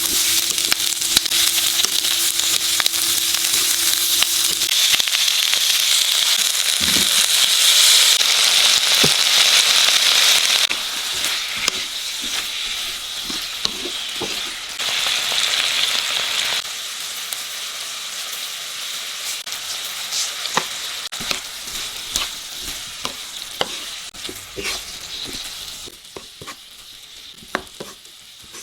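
Garlic scapes stir-frying in oil in a frying pan: a steady loud sizzle with the clicks and scrapes of a spatula stirring. The sizzle drops down in steps about a third of the way through and again later, leaving mostly spatula clicks near the end.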